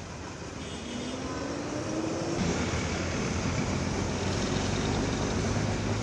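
Road traffic on a city street: a vehicle engine rising in pitch as it speeds up, then, about two and a half seconds in, louder steady traffic noise.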